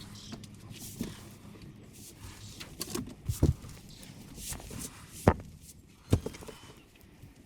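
A handful of irregular sharp knocks and thuds, the loudest about five seconds in, over low background noise.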